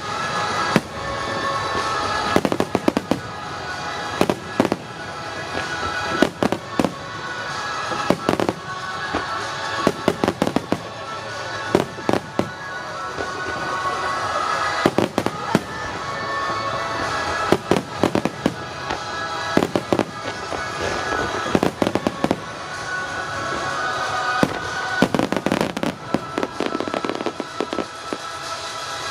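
Starmine fireworks barrage: rapid runs of shell bursts and bangs, coming in clusters with short lulls, over music that plays along with the display.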